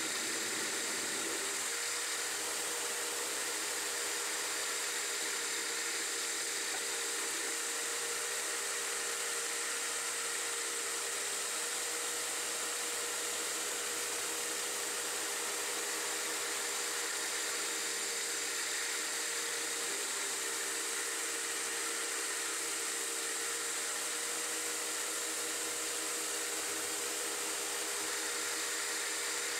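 CNC-converted Harbor Freight 9x20 benchtop metal lathe running a turning and facing cycle on a bracket spacer, its carbide insert cutting steadily. It makes a steady whine under an even hiss.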